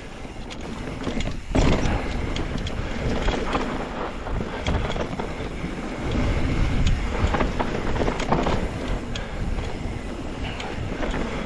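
Mountain bike riding down a dirt trail: wind rushing over the microphone, with tyre noise and many scattered clicks and rattles from the bike.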